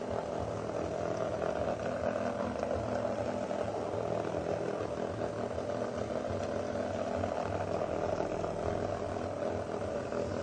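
Several small vibrating bug toys, cheap knock-offs of the Hexbug Nano, buzzing steadily as their tiny vibration motors run.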